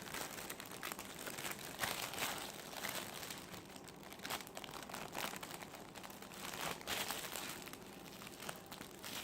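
Thin plastic seal bag crinkling irregularly as a squishy toy is squeezed and pushed into it.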